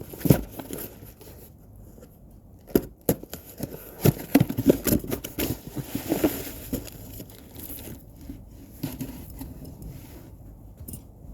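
Hand work on an air-conditioner outdoor unit during fan motor removal: irregular metallic clicks, knocks and scraping as parts and tools are handled. There is a cluster of sharp knocks near the middle.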